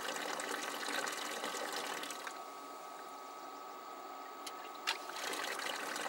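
Water trickling and dribbling into the sump of an evaporative swamp cooler, with a single sharp click about five seconds in.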